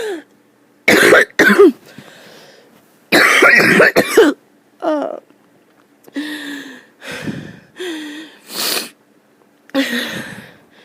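A person's harsh coughing fit: two loud coughs about a second in and a longer, louder burst of coughing around three to four seconds in, followed by several shorter, softer coughs.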